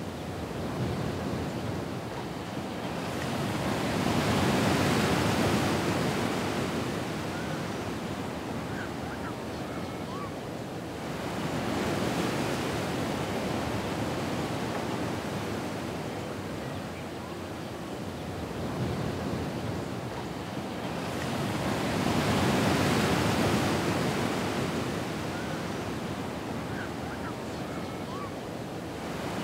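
Ocean waves breaking and washing back in slow swells. The two loudest surges come about eighteen seconds apart, with a smaller one between them.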